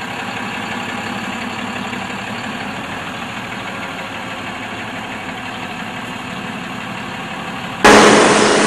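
Diesel engine of a Higer bus idling with a steady hum. Near the end the sound jumps suddenly to a much louder, harsher level.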